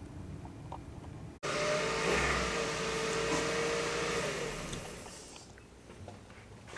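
A motor vehicle running, coming in abruptly about a second and a half in with a steady hum under a rushing noise, then fading away over the next few seconds.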